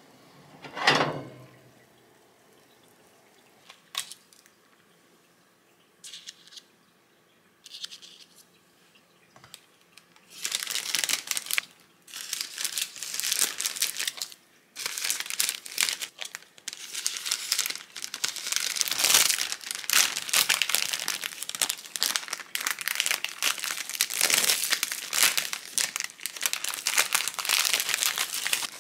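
Thin clear plastic bags crinkling and rustling continuously as muffins are slipped into them and the tops are gathered and twisted shut. One sharp knock comes about a second in, followed by a quiet stretch with a few small clicks before the crinkling starts at about ten seconds.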